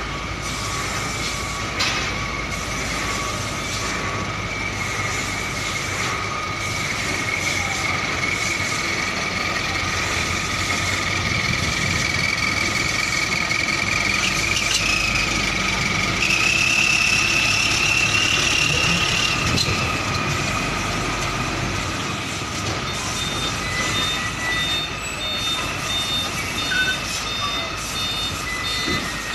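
Hino Ranger FG 235 TH truck's diesel engine running as it pulls slowly across the yard, growing louder as it comes close, with a high whine over the engine that steps up in pitch about halfway. A repeated high warning beep starts in the last few seconds.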